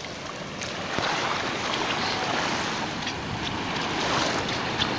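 Shallow river water lapping and washing in small ripples over a sandbank, a steady rushing hiss.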